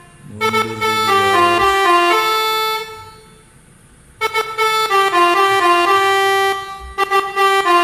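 Basuri telolet bus horn, a multi-tone air horn, playing a quick tune of stepping notes, dropping away for about a second midway and then starting the tune again.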